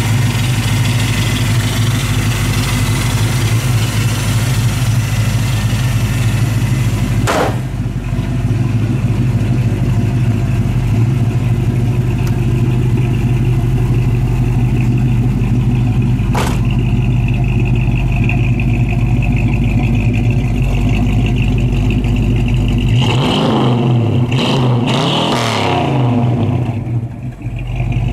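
1971 Plymouth Scamp's 360 V8 running at a steady idle, broken by two short clicks. The revs rise and fall a few times near the end.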